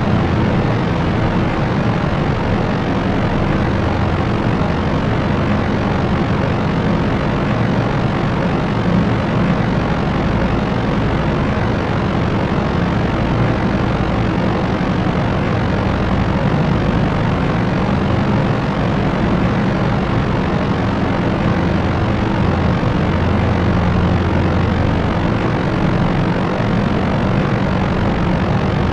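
Propeller aircraft's engines and propellers running steadily: a constant low hum over an even rushing noise, with no change in pitch or level.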